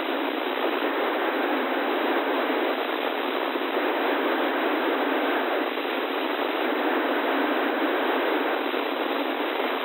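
Steady, even hiss of radio static from a NOAA weather radio receiver with no voice or alert tone coming through.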